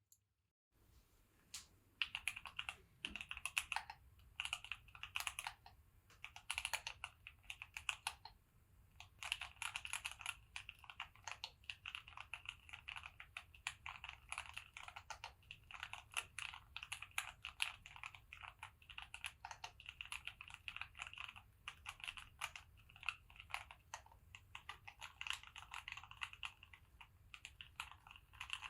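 Fast, continuous typing on a Keychron Q8 mechanical keyboard, a sound test of its keys. It starts after a second or so of quiet and pauses briefly about a third of the way through.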